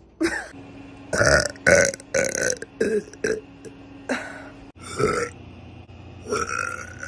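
A woman burping loudly, about eight burps in quick succession, some short and some drawn out.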